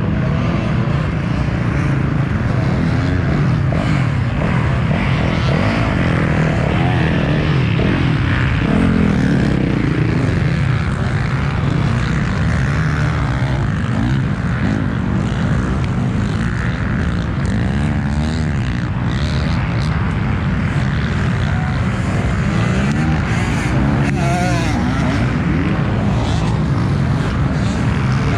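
KTM 125 SX single-cylinder two-stroke dirt bike engine running under riding, revving up and down repeatedly as the throttle opens and closes.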